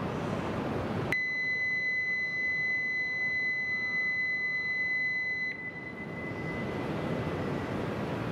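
Electronic departure bell on a Shinkansen platform: one steady high tone starts abruptly about a second in, holds for about four seconds and cuts off sharply, ringing on faintly for a moment. Under it is the steady rumble and hiss of the station, with the train still standing.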